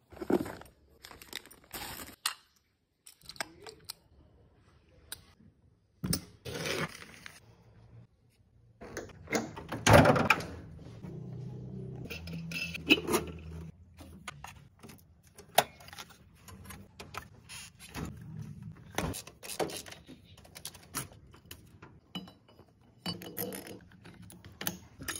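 Hands unboxing and handling an Edelbrock carburetor and its mounting parts: cardboard and plastic packaging rustling, with scattered clicks and light clinks of small metal parts.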